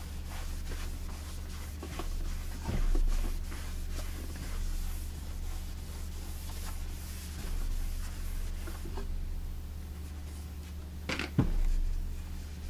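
A cloth rubbing over the wooden cabinet of a Majestic 5A455 radio as wax is wiped on, in soft scattered strokes. There is a dull thump about three seconds in and another near the end, over a steady low hum.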